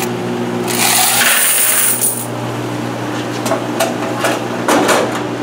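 Quarters jingling and clattering in a metal washer coin box: a rush of shaken coins about a second in, then several separate clinks and knocks. A steady low machine hum runs underneath.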